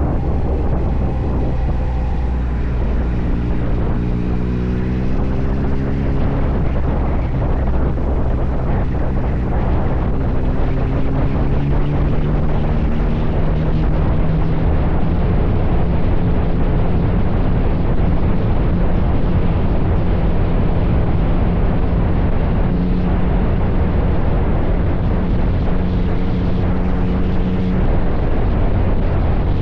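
Yamaha Tracer 9's 890 cc inline three-cylinder engine accelerating through the gears, its pitch climbing and dropping back at each shift over the first several seconds, then holding a fairly steady cruising note.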